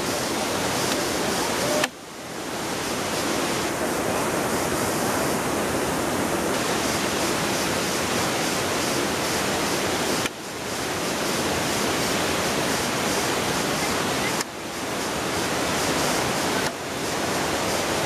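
Steady rush of a waterfall and jungle stream. It drops away suddenly four times, about two seconds in, about ten seconds in and twice near the end, and swells back each time.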